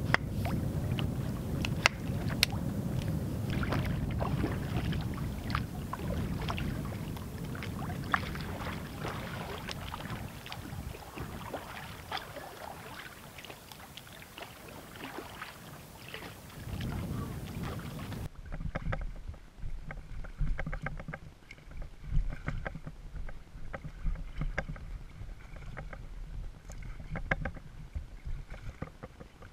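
Wind noise on the microphone with a few sharp knocks, then, after a sudden change about two-thirds in, close paddle strokes splashing and dripping in the water beside an inflatable packraft.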